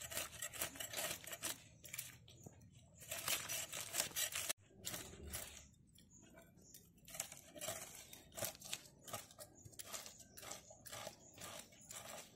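Rohu fish being scaled against the fixed blade of a boti (floor-mounted curved knife): runs of quick rasping scrapes as the scales are stripped off.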